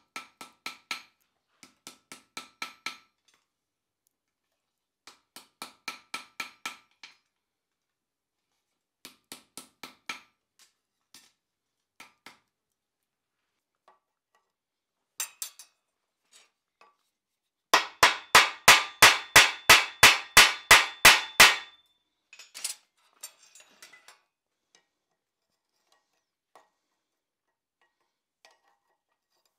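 Blacksmith's hammer striking hot steel on an anvil: short groups of light, ringing taps, then a fast run of about a dozen heavy blows, about three a second, driving a punch through the centre of the hot piece over the anvil's hole.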